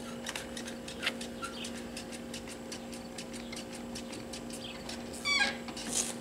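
Light scuffing steps on gravel over a steady low hum, with a short squeal that falls in pitch about five seconds in.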